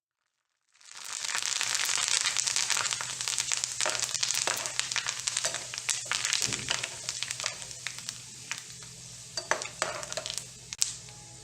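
Potato sev (gram-flour and potato dough strands) deep-frying in hot oil: a dense sizzle full of crackles and pops. It starts about a second in and gradually eases off.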